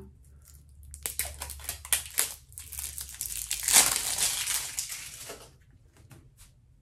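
Plastic wrapping crinkling and tearing as it is peeled off a small hand sanitizer bottle. Dense crackles start about a second in, are loudest around the middle, and die away near the end.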